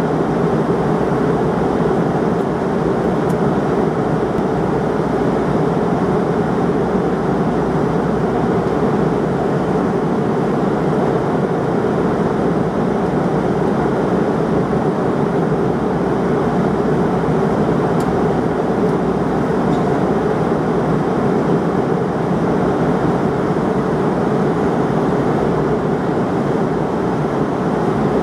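Steady cabin noise of a McDonnell Douglas MD-88 airliner cruising at 33,000 feet: the constant rush of airflow over the fuselage and the drone of its twin rear-mounted engines, an even roar with a steady hum in it that never changes.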